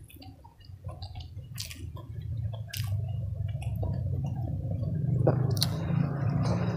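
Close-up wet chewing and smacking of a person eating a handful of rice and dressed greens, with a few sharp mouth clicks. Underneath is a low, steady rumble that swells from about five seconds in.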